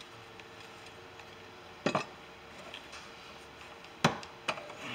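A few sharp knocks and clicks of hand tools against the metal bracket and parts under the cowl, while the bracket's two 10 mm bolts are being removed: one about two seconds in, a louder one about four seconds in, then two lighter taps.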